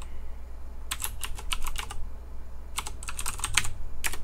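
Typing on a computer keyboard as a password is entered: a quick run of keystrokes about a second in, a second run about three seconds in, and one more keystroke near the end, over a low steady hum.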